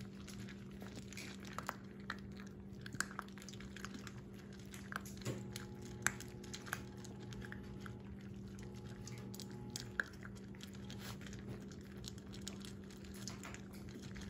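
A litter of Shetland sheepdog puppies crunching dry kibble from a stainless steel bowl: many irregular crunches and clicks over a steady low hum.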